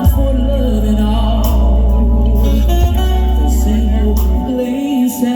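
Music: a singer holding long notes with a wide vibrato over loud, sustained bass notes that change every second or so.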